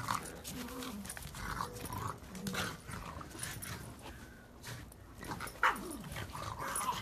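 Pug playing with a plastic ball, making short low vocal sounds amid scuffing and bumping of the ball, with one sharp knock about two-thirds of the way through.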